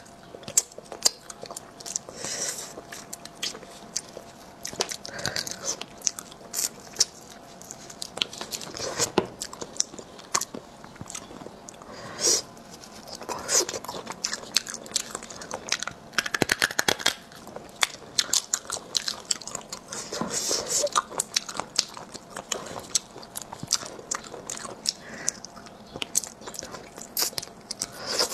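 Close-miked eating of spicy sea snails: wet biting and chewing with many small clicks and crunches.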